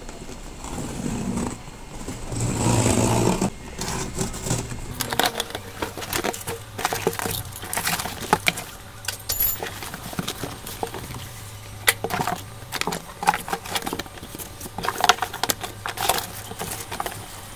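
Cardboard shipping box being unpacked by hand. A long harsh scrape about two seconds in as the packing tape is slit and the flaps pulled open, then irregular rustling, crinkling and knocks of foam wrapping and cardboard as parts are lifted out.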